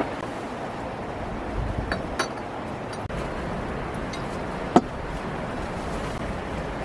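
Steady rushing wind noise with a few sharp clinks: a pair about two seconds in and a louder single one near the end.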